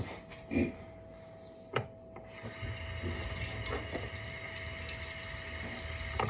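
A few light knocks, then about two and a half seconds in a steady rushing noise starts and runs on until near the end.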